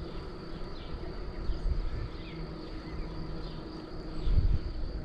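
Rolling rumble of a bicycle ride picked up by a handlebar camera, with wind on the microphone swelling about four seconds in. Faint high chirps repeat every half second or so above the rumble.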